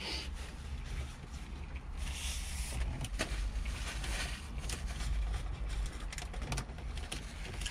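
Paper napkin rustling and crinkling as greasy hands are wiped, with a few light clicks, over a steady low rumble of a parked car's cabin.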